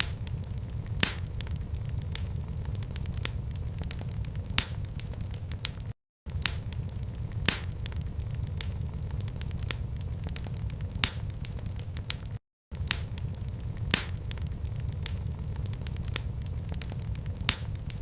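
Wood fire crackling in a fireplace: sharp, irregular pops and snaps over a steady low rumble of flames. The sound drops out to silence for a split second twice.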